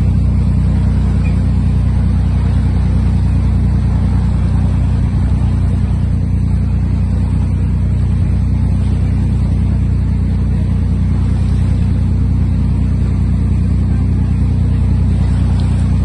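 Boat engine running at a steady low drone, with water noise over it.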